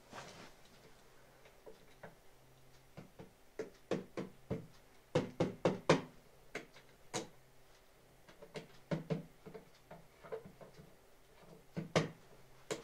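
Irregular clicks and knocks from handling the animated scarecrow prop, coming in scattered clusters and loudest about five to six seconds in.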